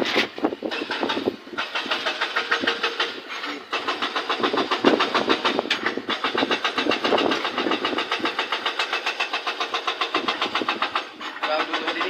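Road roller's diesel engine running with a fast, even knocking pulse, about six beats a second.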